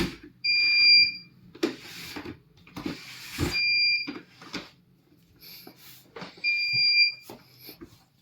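An electronic beep sounding about every three seconds, each one a steady high tone lasting about half a second. Between the beeps come short scraping and knocking noises.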